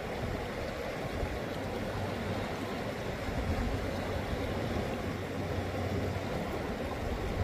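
Steady rushing noise of river water, with a low steady hum underneath.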